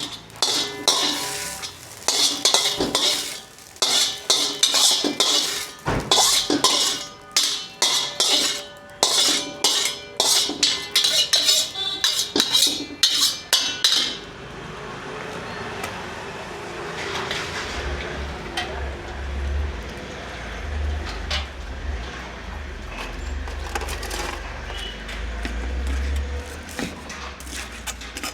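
Street-stall wok cooking: a metal ladle rapidly clanging and scraping against an iron wok in quick, uneven strokes during stir-frying. About halfway through the clanging stops and a steady hiss continues, with a low rumble joining a few seconds later.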